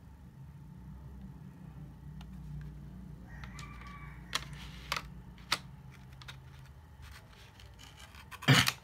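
Clicks and knocks from a 2.5-inch SSD being handled in its clear plastic packaging tray: three sharp clicks around the middle and a loud clatter near the end, over a steady low hum.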